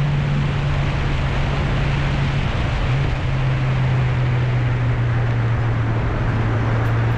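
BMW S1000XR's inline-four engine running at a steady cruise. Its note steps slightly lower about three seconds in and then holds, under a heavy rush of wind on the microphone.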